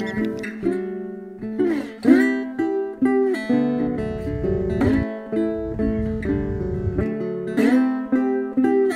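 Background music: acoustic guitar, plucked notes and strummed chords.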